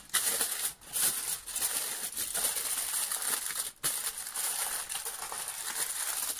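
Aluminium foil crinkling and crumpling as hands fold and press it around a parcel of food, with two short pauses.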